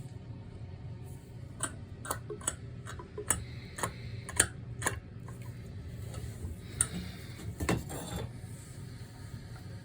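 A series of sharp, irregular clicks and knocks, with a pause and then a few more near the end, over a low steady hum.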